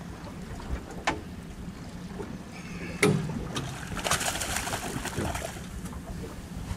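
A hooked false albacore splashing and thrashing at the surface beside the boat, a dense run of splashing from about four seconds in, over wind on the microphone and a steady low hum. A sharp knock about three seconds in is the loudest sound.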